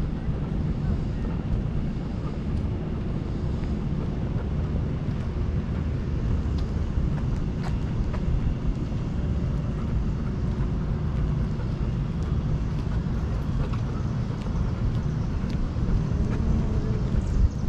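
Steady low rumbling wind and movement noise on a GoPro camera riding on a walking dog's harness, with a few faint clicks.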